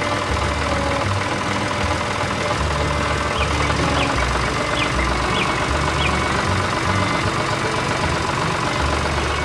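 A tractor engine sound effect runs steadily at idle. A few short falling chirps sound over it.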